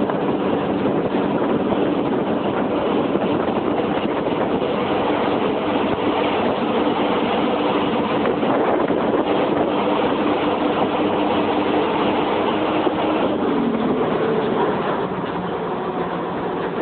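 The engine of an open-sided vehicle running steadily, heard from on board while riding, mixed with road and wind rush. Its note drops a little about 13 seconds in, as if easing off.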